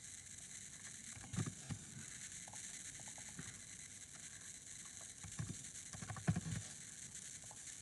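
Faint computer keyboard typing and mouse clicks: a few scattered short taps in two small clusters over a steady low hiss.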